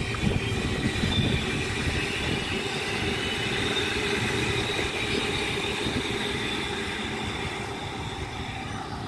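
Suburban passenger train running past, a steady high whine over a low rumble that eases off near the end.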